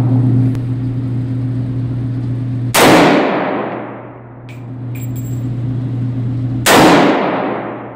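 Two shots from a CSA Vz 58 Sporter rifle, about four seconds apart, each with a long echoing tail in an indoor range, over a steady low hum.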